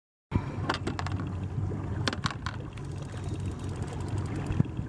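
Boat motor running steadily with a low rumble, with water and hull noise and a few sharp knocks in the first half.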